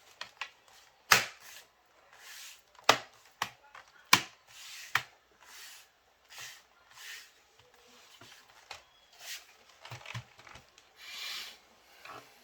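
Hands working a Dell laptop: a few sharp clicks and taps from keys and case, with short soft hissing noises between them. No beeping, now that the motherboard's CMOS battery has been replaced.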